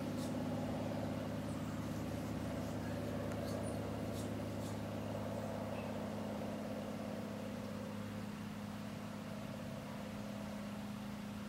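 A steady low mechanical hum with a few fixed tones in it, slowly fading, with a few faint high ticks in the first half.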